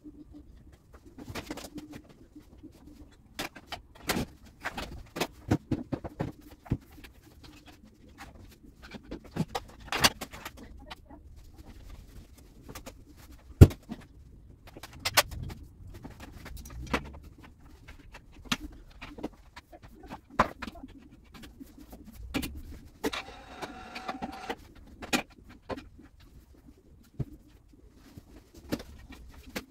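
Knocks and clatter of a grooming room being cleaned up: equipment handled and set down and a broom working over the floor, in many separate sharp knocks. Late on, a brief pitched whine lasts about two seconds.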